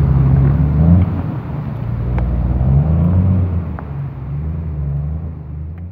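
Low outdoor rumble, like a car running in a car park or wind on the microphone, fading over the last couple of seconds.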